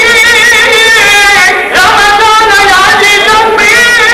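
A man singing a naat, an Islamic devotional poem, into a microphone. He holds long notes with a wavering, ornamented pitch and takes a short break about one and a half seconds in.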